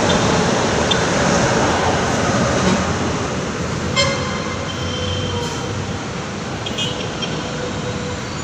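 LRT-1 light rail train running away along elevated viaduct track, its rumble slowly fading over steady road traffic noise. A single sharp knock about four seconds in.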